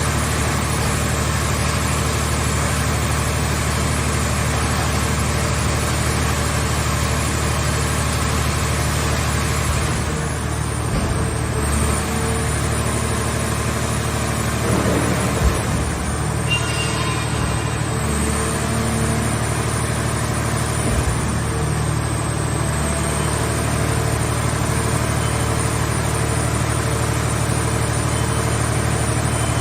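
Scrap car shell baler running steadily, with a constant low engine-like hum. A few short knocks and clunks come in the middle.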